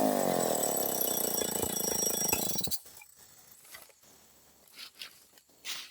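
Stihl chainsaw engine winding down from a rev and running at a lower, steadier speed, then cut off abruptly about two and a half seconds in. A few faint knocks or crunches follow.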